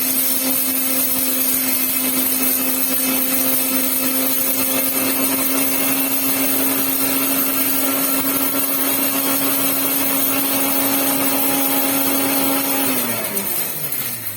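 Electric kitchen mixer grinder running at full speed, grinding. About thirteen seconds in it is switched off and its hum falls in pitch as the motor spins down.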